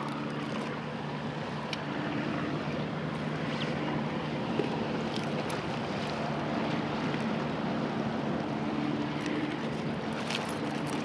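Steady low drone of a motorboat's engine running past, under wind on the microphone and the wash of waves, with a few light clicks near the end.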